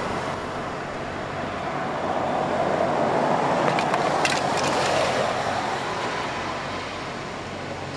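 A car passing on a wet road, its tyres hissing, swelling about halfway through and then fading away. A few short, sharp clicks near the middle.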